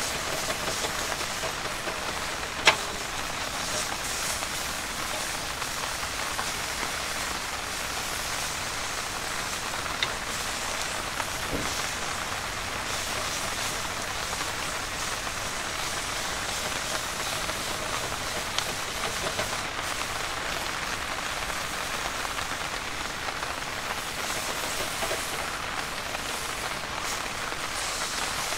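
Steady hiss of rain falling, broken by a few sharp clicks, the loudest about three seconds in.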